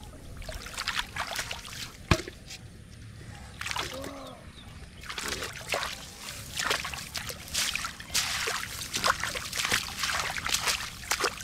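Hands splashing and sloshing through shallow muddy water of a flooded rice field while feeling for catfish: a run of irregular splashes and trickles, busiest in the second half, with a single sharp knock about two seconds in.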